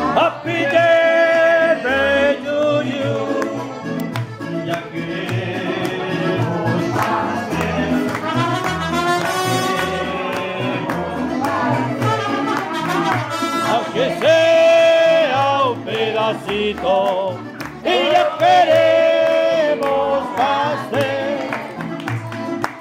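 Mariachi-style music with trumpets and singing over a steady bass line, with long held notes.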